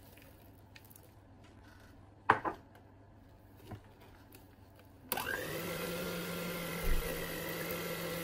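A sharp knock, then about five seconds in an electric hand mixer switches on and runs with a steady motor whine, its beaters churning chopped walnuts into a thick cake batter in a plastic bowl.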